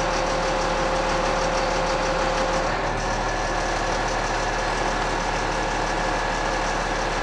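Peterbilt 320 truck engine running at idle with its PTO-driven hydraulic pump working the hi-rail gear, the hydraulics held over the relief valve. A steady tone over the engine noise stops about three seconds in and a higher steady tone takes its place.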